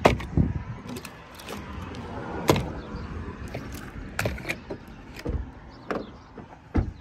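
Scattered clicks and knocks of packaged hardware, a turnbuckle and quick links in plastic blister packs, being picked up, moved and set down on a plastic truck bed liner, with handling bumps; about ten sharp knocks at uneven intervals.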